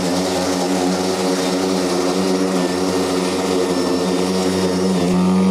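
AS Motor battery-powered commercial rotary mower running with its blade motor in turbo mode, a steady whine at one even pitch, as it cuts a strip of thick field grass down to about an inch.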